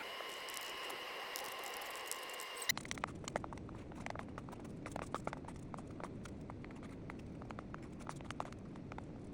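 Stylus tapping and clicking on an iPad screen: sharp, irregular clicks, several a second, starting abruptly about three seconds in. Before that there are a few faint steady tones with scattered taps.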